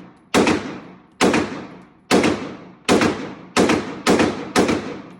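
A firearm shooting seven rounds in quick succession, just under a second apart at first and coming faster near the end, each shot trailing off with a ringing echo.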